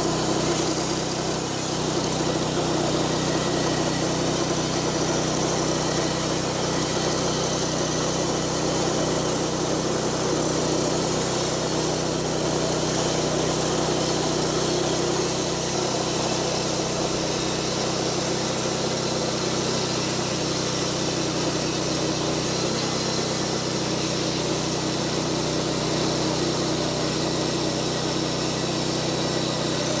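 Homemade bandsaw sawmill driven by a 6.5-horsepower gas engine, running steadily under load as its band blade cuts lengthwise through a log.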